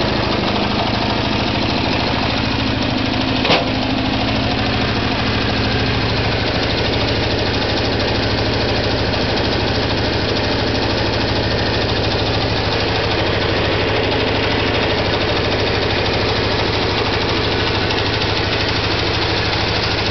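Small petrol engine of a half-scale Land Rover replica idling steadily, with one sharp click about three and a half seconds in.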